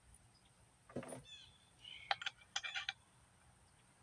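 Wild birds calling faintly: a few quick chirps, a short whistled note and a brief rattling chatter, with a soft knock about a second in.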